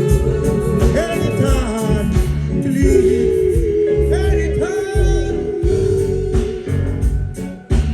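Live reggae band playing: a held lead melody line with some sung or played glides over bass and drums, the sound dropping briefly near the end before the beat comes back in.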